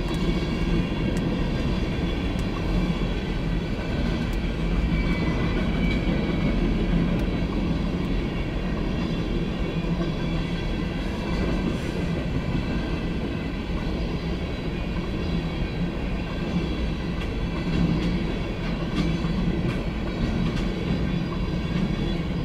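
CSX freight train of open-top hopper cars rolling past at a crossing: a steady rumble and clatter of steel wheels on the rails, with a faint high ringing throughout.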